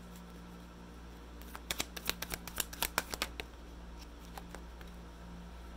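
A tarot deck being shuffled by hand: a quick run of crisp card clicks lasting about two seconds, starting about a second and a half in, over a steady low hum.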